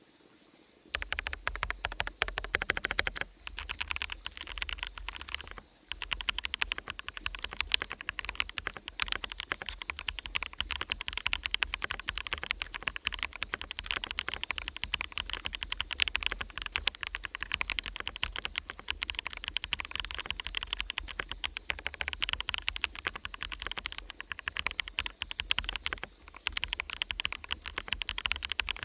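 Fast, continuous typing on a Vertex V1 mechanical keyboard with hand-lubricated switches, giving a deep, muted clack, with brief pauses three times. Forest ambience runs underneath, with a steady high-pitched tone and a low hum.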